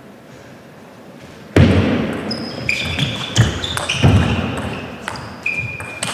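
Table tennis rally: the ball clicking off bats and table in quick, irregular knocks, starting about a second and a half in, with short high squeaks of shoes on the court floor.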